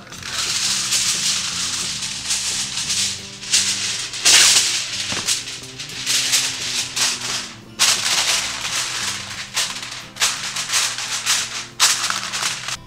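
Aluminium foil rustling and crinkling in repeated bursts as a sheet is handled and pressed down around the rim of a baking dish, over faint background music.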